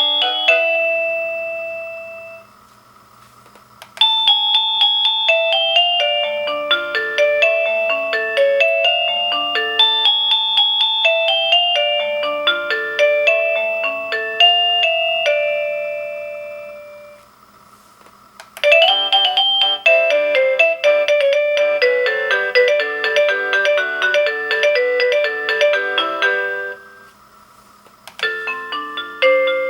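Avantek D-3B wireless doorbell receiver playing its built-in electronic chime melodies one after another, each a tune of quick electronic notes. One tune fades out at the start, two more play in full, each followed by a pause of a second or so, and a fourth begins near the end.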